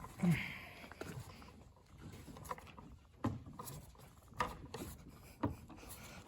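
Fuel gauge being pushed and worked back and forth into its grommet in a mower's fuel tank: faint rubbing with scattered knocks, a louder bump just after the start.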